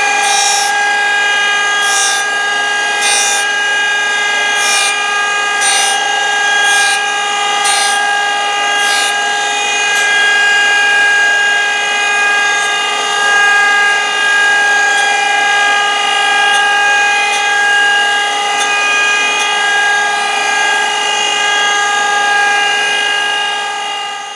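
Surface grinder running with a steady whine from its wheel and spindle. Short bright hisses come about once a second for the first nine seconds or so, as the pink wheel grinds a steel key blank carried back and forth under it, then thin out to faint ticks. The blank is a 3/16 in. tailstock key being ground a few tenths down to a sliding fit.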